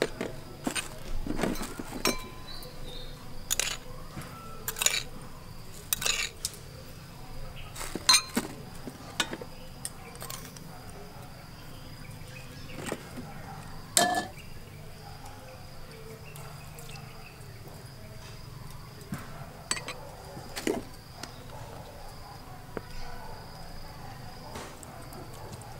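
Irregular light clinks and taps of a small bowl and spoon against the seasoning basin as powdered seasonings are tipped in, one sharper clink about halfway through. A steady high insect drone runs underneath.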